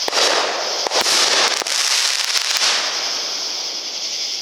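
Consumer firework going off: a loud hiss with several sharp crackling pops over the first three seconds, settling into a steadier, quieter hiss.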